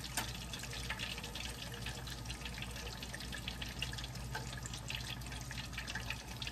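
Hot oil sizzling and crackling steadily in a cast-iron skillet around battered fish fillets frying golden.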